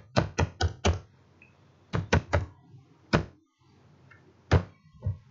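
Computer keyboard keystrokes: a quick run of four clicks, then another run of four a second later, then single strokes spaced out, as digits and dots are typed.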